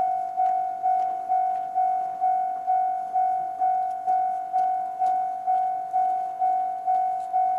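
Japanese railway level-crossing alarm with the electronic JR Central-type tone, ringing a repeated ding about twice a second, each ding fading before the next.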